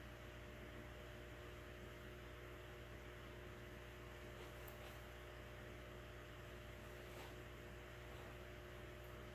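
Faint steady electrical hum with several fixed tones, with a couple of faint ticks partway through.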